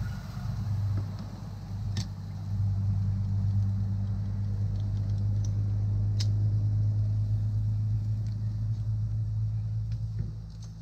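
A steady low rumble, like a running engine or motor, with two sharp metallic clicks from steel grill tongs on the cooking grate, about two seconds and about six seconds in.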